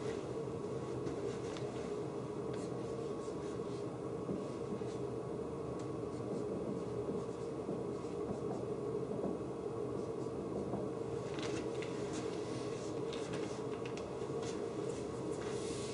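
Dry-erase marker writing on a whiteboard: short scratchy strokes, scattered at first and more frequent from about two-thirds of the way through, over a steady low room hum.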